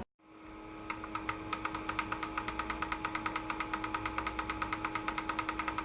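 Rapid, evenly spaced clicking from a small machine, about nine clicks a second, over a steady hum; the clicking starts about a second in and stops near the end.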